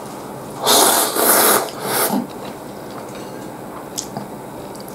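Ramen noodles slurped loudly in three quick pulls, followed by a single light click, like chopsticks tapping the bowl, about four seconds in.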